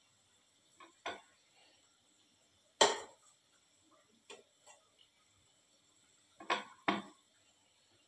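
Stainless steel slotted spoon clinking against a steel pot while lifting gujiyas out of sugar syrup: a handful of sharp metal knocks, the loudest about three seconds in and two close together near the end.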